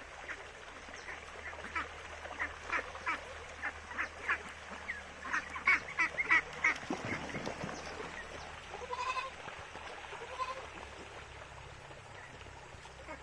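A flock of domestic ducks quacking repeatedly, about two quacks a second, growing louder as they pass close by, then dying away. A couple of short goat bleats follow in the second half.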